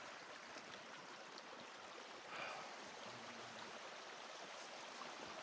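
Small mountain stream running over rocks across a trail: a faint, steady rush of water.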